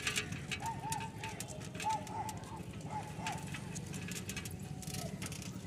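A bicycle in motion, rattling and clicking irregularly on a rural road. In the first half, a bird gives three short bursts of quick, arching calls.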